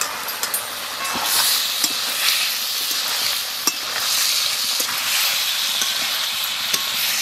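Spiced curry masala sizzling in a steel karhai as fried potatoes and drumstick pieces are stirred and sautéed in it with a metal spatula, with scattered clicks of the spatula against the pan. The sizzle grows louder about a second in, once the stirring starts.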